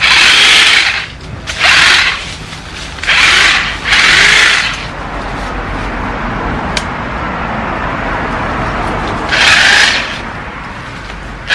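Corded electric chainsaw cutting tree wood in about five short, loud bursts, with a quieter steady run between them.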